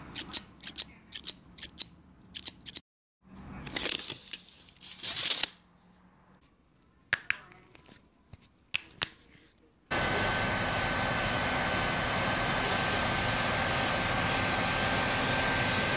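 A pair of scissors snips several times in quick succession, followed by handling rustles and a few more clicks. About ten seconds in, a handheld hot-air plastic welder's blower starts running loud and steady, with a constant whine over its rushing air.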